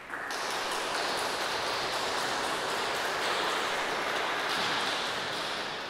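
Audience applauding, steady, then dying away near the end.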